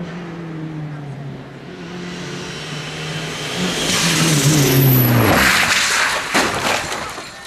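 A rally car's engine approaching at high revs, rising in pitch, then the revs dropping sharply about five seconds in as the car slides wide, with loud tyre and gravel scrabbling. A sharp bang near the end as it strikes the roadside bank.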